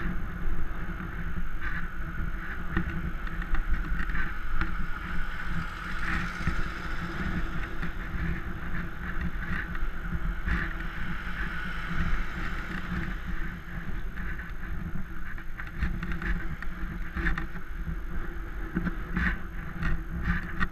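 Wind and road rumble from a bicycle riding along a street, recorded by a helmet-mounted action camera, with a few short knocks from bumps in the road.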